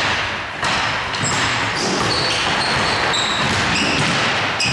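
Basketball game play on an indoor court: the ball bouncing and several short, high squeaks of sneakers on the floor over steady, echoing hall noise.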